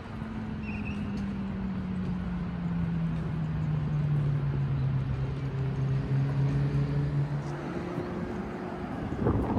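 Road traffic: a motor vehicle's engine hum sliding slowly down in pitch over several seconds above a steady traffic rumble, with a burst of rough noise near the end.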